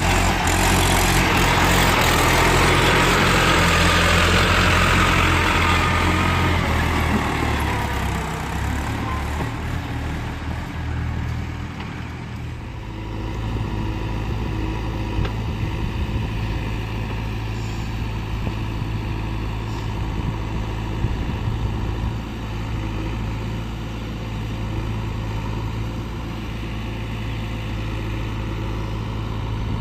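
Diesel engine of heavy machinery running hard and loud for the first several seconds, then easing off and settling to a steady idle from about twelve seconds in.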